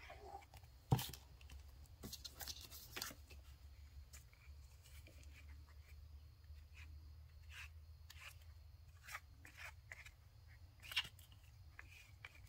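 Faint scraping and rubbing of a small piece of card spreading glue across the paper cover of a journal, in short strokes, with one sharp knock about a second in.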